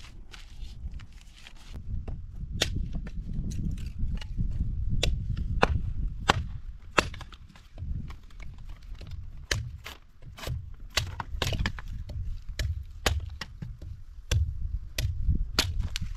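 Axe splitting a board into kindling on a wooden chopping block: a long run of sharp chops, roughly one or two a second, starting a couple of seconds in.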